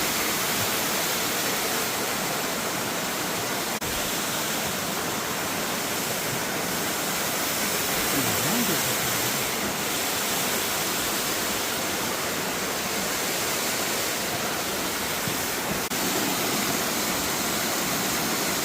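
Seven Falls waterfall, a steady, even rush of falling water.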